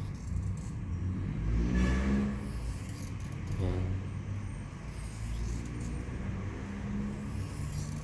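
Motor vehicle traffic passing: a steady low engine rumble that swells about two seconds in and again near four seconds as vehicles go by.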